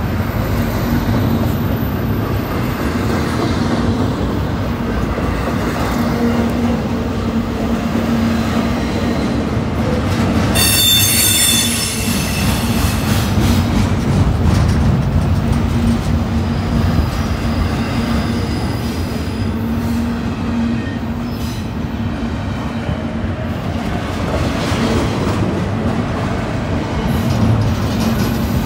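Double-stack intermodal freight train rolling past at close range, a steady rumble of wheels on rail. About ten seconds in, a wheel squeals briefly and high-pitched.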